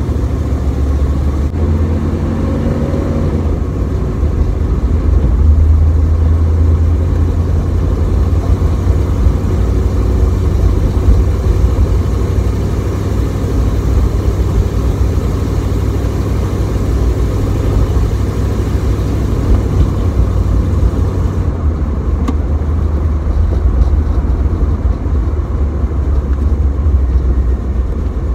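An old car's engine and road noise heard from inside the cabin while driving: a steady low drone, with the engine note rising briefly a couple of seconds in.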